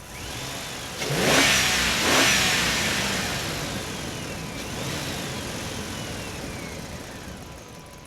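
Road vehicles passing close by: a rush of engine and tyre noise swells sharply about a second in, peaks twice, then fades away over several seconds, with a whine that rises and falls in pitch as they go by.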